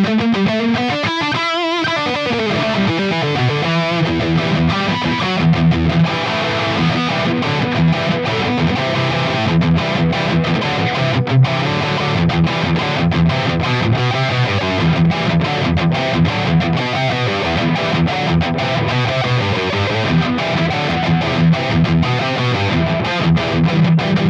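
Maybach Lester 59 electric guitar with humbucker pickups played through a high-gain distorted tone: a metal-style riff, with a wavering bent note about a second in and low repeated chugging notes after it.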